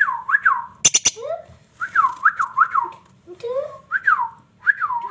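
Pet parrot whistling a string of short repeated notes, each dipping and rising again in pitch, with a couple of sharp clicks about a second in.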